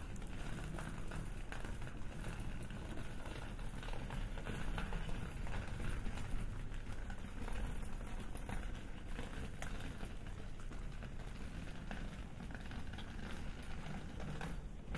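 Walking street ambience: a steady low city hum with faint pattering footsteps and scattered small clicks.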